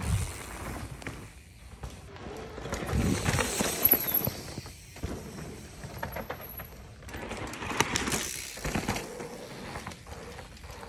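Mountain bike riding down a loose dirt trail: tyres crunching and skidding over the dirt, with the chain and frame rattling over bumps. The noise swells twice, once early and once near the end.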